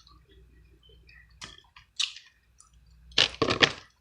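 King crab leg shell crackling and snapping as the meat is pulled out of the cracked shell: soft clicks and crackles, then a quick run of loud cracks about three seconds in.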